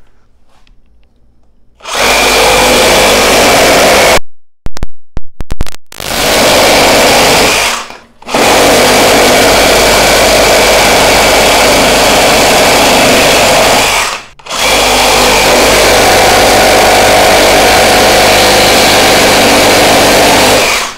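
Makita XGT 40V first-generation (GRJ01) cordless reciprocating saw, with no orbital action, cutting through a pressure-treated 4x4. The saw starts about two seconds in and runs loud and steady in several long stretches, with short breaks around four to six seconds in and brief dips near eight and fourteen seconds.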